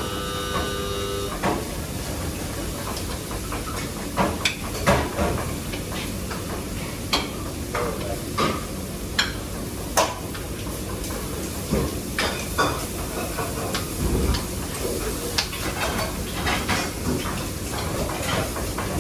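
Commercial kitchen: a steady hiss with scattered clatter and knocks of pans and utensils. A brief mechanical whirring ends about a second in.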